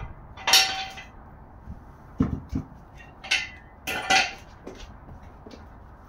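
Several sharp metallic clanks and short scrapes as a bare Kia 1.6 GDI engine block is tipped and turned over by hand on the floor, the loudest about half a second in.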